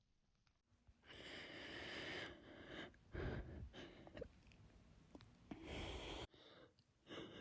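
A woman breathing close to the microphone between hiccups. There is a long breath, then a short sharp catch about three seconds in, and another breath that breaks off abruptly just past six seconds. Stretches of dead silence stand at the start and near the end.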